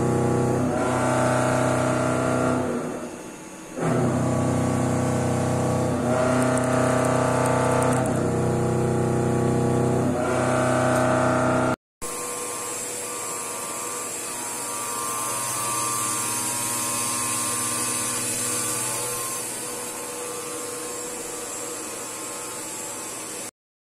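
GF Mikron CNC milling machine running: a loud, steady multi-tone whine that shifts in pitch every couple of seconds and briefly drops out about three seconds in. After an edit cut, a quieter steady machine hum with a high hiss.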